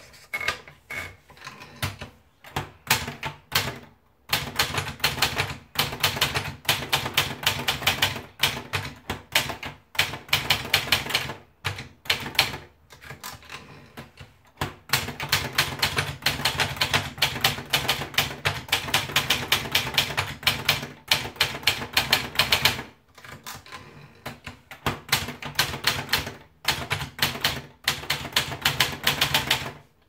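Olivetti Lettera 10 portable manual typewriter being typed on: fast runs of key strikes, broken by a few short pauses.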